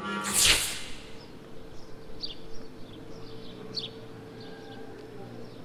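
Small birds chirping in short, high, descending chirps scattered every half second or so, over a faint steady hum of outdoor ambience. A brief loud whoosh comes about half a second in.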